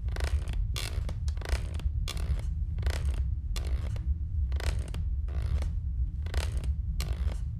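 Wooden rocking horse rocking, giving short raspy creaks and scrapes about twice a second over a steady low rumble.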